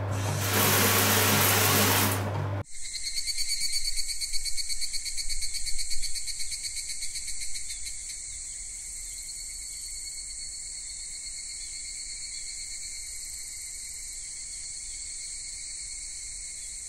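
A shower spraying water with a steady hiss and low hum, cutting off abruptly after about two and a half seconds; then a steady high-pitched chirring of insects, like a cricket chorus.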